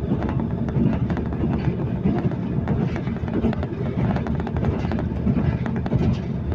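Running noise inside a passenger train carriage at speed: a steady low rumble of wheels on the track with frequent small rattles and clicks.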